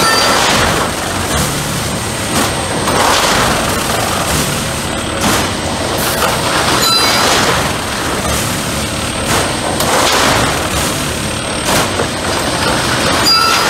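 Railway track tamping machine at work: its hydraulically vibrated tamping tines plunge into the ballast and squeeze it under the sleepers over the machine's steady running. Each tamping cycle brings a loud surge of noise, about every two to three seconds.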